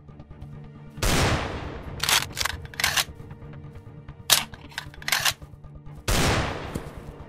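Gunshot-style bangs over background music: two loud shots with a long fading tail, about a second in and about six seconds in, with several short sharp cracks between them.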